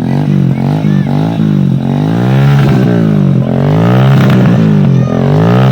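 Hero Splendor's single-cylinder four-stroke engine breathing through a Royal Enfield Bullet Classic 350 exhaust, revved over and over, its pitch rising and falling in blips about once a second with two longer revs in the middle.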